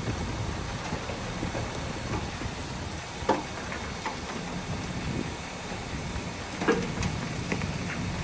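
Heavy earthmoving machinery running with a steady low diesel rumble, with a few short metallic clanks, the loudest about three seconds in and again near the end.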